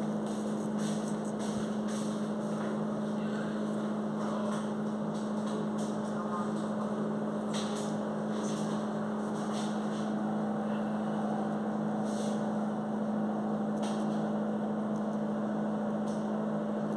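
A steady electric hum, with a few brief faint scrapes as a straight razor shaves the hairline.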